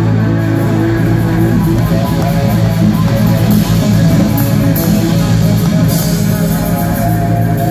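A live rock instrumental trio playing loudly: a Stratocaster-style electric guitar holds sustained notes over electric bass guitar and a drum kit, with cymbals crashing several times in the second half.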